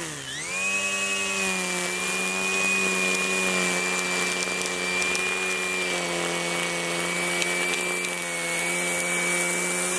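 Makita XRU11M1 18V brushless cordless string trimmer spinning up about half a second in, then running at a steady high whine as its nylon line edges grass along a concrete driveway.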